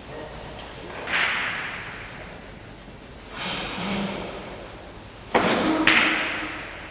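Carom billiards shot: the cue tip strikes the cue ball a little over five seconds in, and the ball makes a sharp click on its next impact about half a second later. Two duller knocks come earlier.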